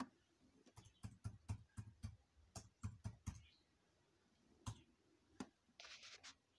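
Faint fingertip taps on a smartphone, picked up by the phone's own microphone: a quick run of about ten light taps, two more a little later, and a brief rustle near the end.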